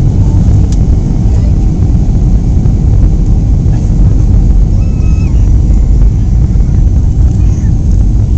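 Steady loud rumble of an airplane cabin on descent: engine and airflow noise heard from a window seat.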